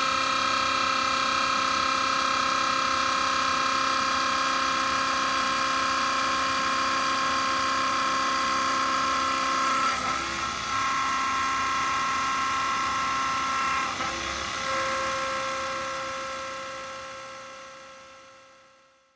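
Grizzly G0759 milling machine cutting a pocket in a metal plate with an end mill: a steady, loud whine of spindle and cutting with several held tones. It wavers briefly twice, about halfway and a few seconds later, then fades out near the end.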